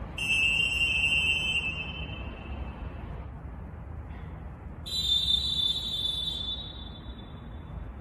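Two long, full-force referee whistle blasts, each about three seconds. First a Molten Deluxe whistle at a lower pitch, then about a second and a half later a Molten Deevo whistle at a noticeably higher pitch, which fades at its end. A steady low background rumble runs underneath.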